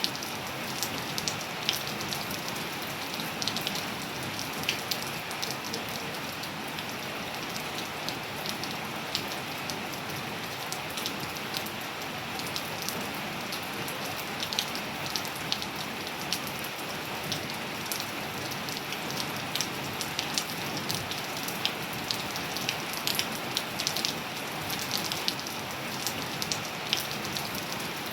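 Steady rain falling on a surface, an even hiss with many scattered sharp drips and drop ticks.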